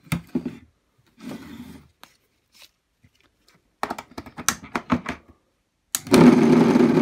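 A run of sharp clicks and knocks, then about six seconds in the three-phase induction motor from a Hotpoint Aqualtis washing machine, fed from single-phase mains across only two of its three windings, starts up with a loud, steady buzzing rattle as it bounces about on the bench. The rattle comes from the motor getting a kick from one third of its winding on every mains peak instead of a smoothly rotating field.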